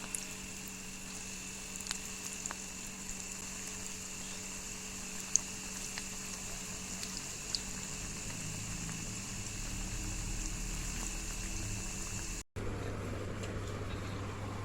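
Potato pakoras sizzling as they deep-fry in hot oil: a steady bubbling hiss with a few light clicks. The sound cuts off abruptly near the end and gives way to a lower hum.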